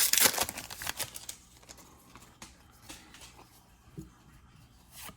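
Foil booster pack wrapper crinkling as it is torn open, loudest in the first second or so. After that it is quiet, with a few faint clicks.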